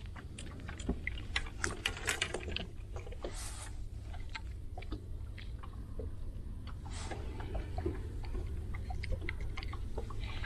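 Wind rumbling on the microphone, with many small clicks and ticks from a spinning rod, reel and line being handled while a crappie is landed by hand, and two short hissing splashes about three and seven seconds in.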